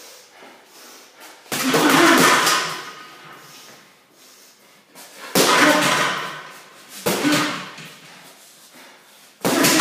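Gloved punches landing on a heavy bag hung by chains from a metal stand, four blows a few seconds apart, each starting sharply and trailing off over about a second.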